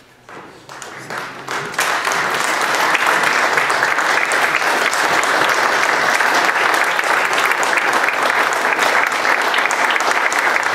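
Audience applauding as the performers walk onto the stage. It starts with a few scattered claps and swells to steady full applause within about two seconds.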